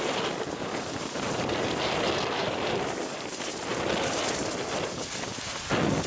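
Storm wind blowing over a harbour breakwater and buffeting the microphone, with the rushing noise of breaking waves and spray; a stronger gust hits just before the end.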